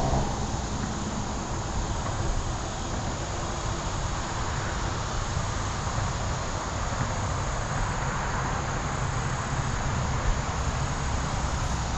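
Steady outdoor noise: a low rumble under an even hiss, with no distinct events.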